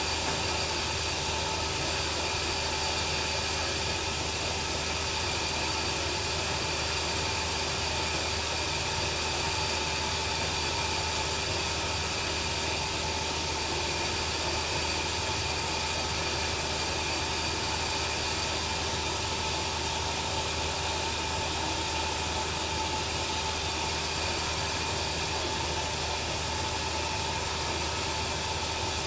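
Bandsaw sawmill running steadily: a constant machine noise with a few held whining tones over a hiss, unchanging throughout.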